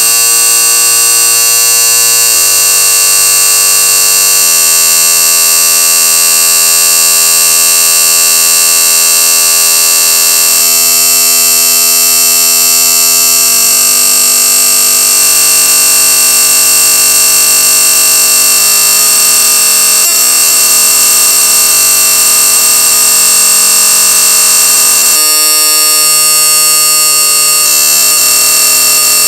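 Loud, piercing alarm-like sound made of many stacked steady tones, strongest high up. It holds without a break, while its pitches jump to a new set every few seconds.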